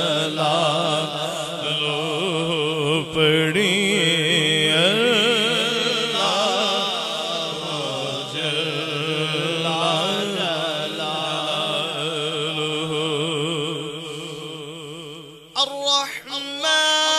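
A man's voice chanting a devotional Islamic zikr melody in long, ornamented phrases with a wavering pitch. Near the end the chant fades, a few short vocal sounds follow, and a steady held note begins.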